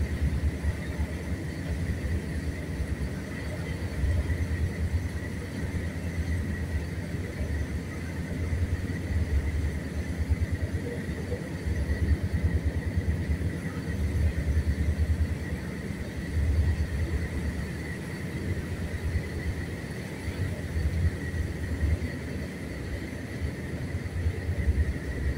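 Passenger train running along the track, heard from inside the carriage: a steady low rumble of wheels and carriage that swells and eases every few seconds, with a faint steady high hum above it.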